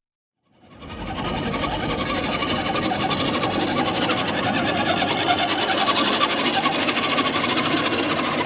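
Radio-controlled truck's electric motor and gears running steadily with a fine rapid rattle as it drives over dirt, fading in after a moment of silence about a second in.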